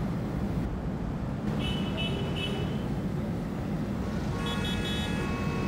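Car horns honking twice, about a second and a half in and again at about four and a half seconds, the second blast longer, over the low rumble of engines in street traffic.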